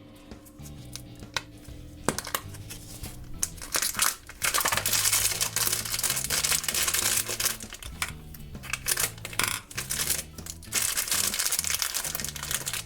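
Scattered clicks and rattles, then a Trolls foil blind bag crinkling and tearing as it is opened, over quiet background music.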